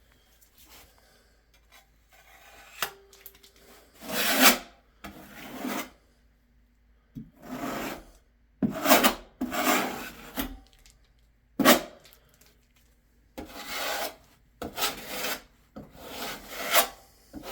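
A series of rough scraping and rubbing strokes, about eight of them with short pauses between: sealant being spread over foam backer board seams and the excess scraped off.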